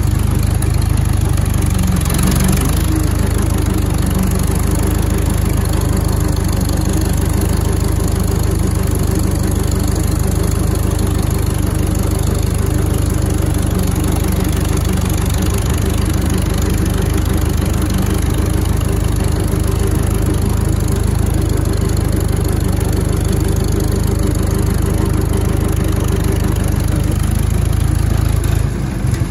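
1938 Farmall F20's four-cylinder engine running steadily under throttle as the tractor is driven. The engine note drops just before the end.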